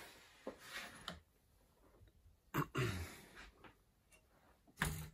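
Handling noises as the centering microscope is taken out of the jig borer's spindle head: a few light clicks and knocks, and a louder knock near the end.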